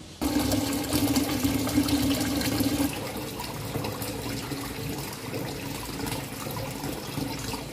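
Tap water pouring into a steel pot standing in a stainless-steel sink, splashing as the pot fills. It starts suddenly, is loudest for the first three seconds or so, then runs on a little quieter.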